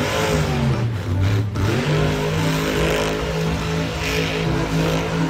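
Monster truck's supercharged V8 engine revving. Its pitch dips and climbs again over the first two seconds, then holds steady.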